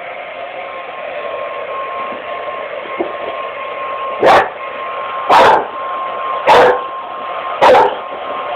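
Hair dryer running steadily with a thin whine, and from about four seconds in a dog barking four times, roughly once a second, over it.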